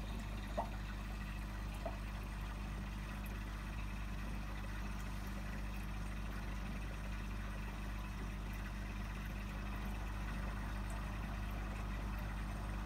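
Steady low hum with an even watery hiss, typical of an aquarium's filter and pump running. Two short clicks sound in the first two seconds.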